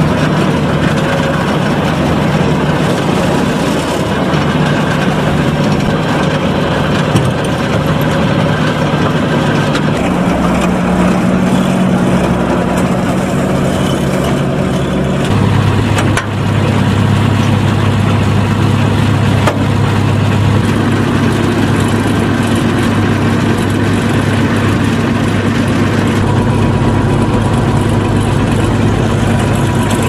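Massey Ferguson 520 Super II combine harvester's diesel engine running at a steady speed, its pitch shifting abruptly a few times.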